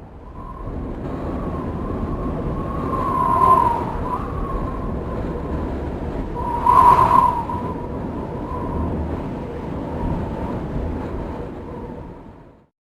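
Strong wind gust: a rushing wind with a thin whistling tone that swells into two louder gusts, about three and a half and seven seconds in, then dies away.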